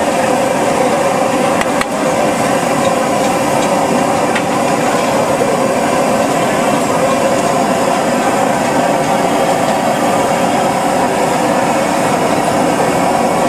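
Steady, loud noise of a busy roadside food stall: liquid bubbling and steaming on a large flat iron griddle (tawa), with a couple of faint clicks.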